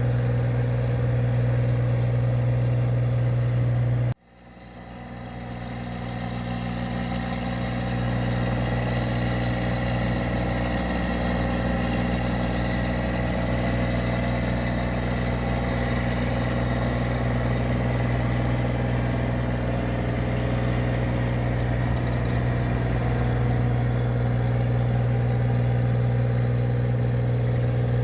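Engine of a rice machine running steadily with a constant low drone. About four seconds in, the sound drops out abruptly, then swells back to full level over the next few seconds.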